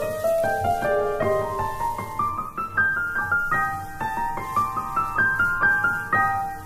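Gentle solo piano music: a melody of single notes climbing and falling over lower held notes.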